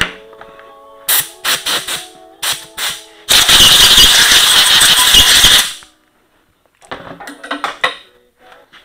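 Compressed-air blowgun blowing out a chainsaw's powerhead in one loud, steady hiss lasting about two seconds. Sharp clicks and knocks of the saw and metal tools being handled come before it and again near the end.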